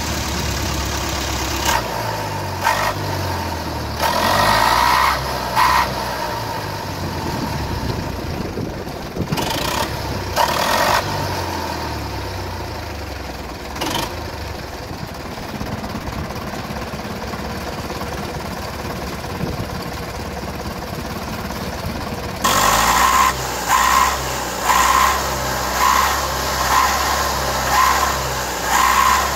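TAF forestry skidder's diesel engine running, its pitch rising and falling several times. About two-thirds of the way through it gets louder, with a rhythmic pulse roughly once a second.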